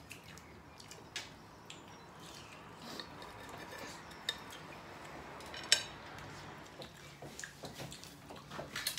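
Scattered light clinks and taps of dishes and cutlery at a meal table, with one louder clink a little past the middle.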